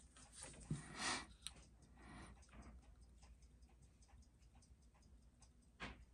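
Seiko 6309 automatic watch movement ticking faintly and evenly at 21,600 beats per hour, six ticks a second, in a timegrapher's microphone stand, running well on the timegrapher. Handling knocks in the first second or so, and one louder knock near the end.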